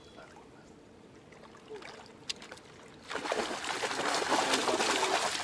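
A hooked barbel of about two kilos thrashing and splashing at the surface as it is drawn into a landing net. The splashing starts suddenly about three seconds in and is loud.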